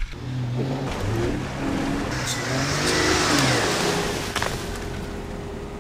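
Jeep Cherokee's engine being driven off-road, revving up and down several times, then settling into a steadier drone in the second half.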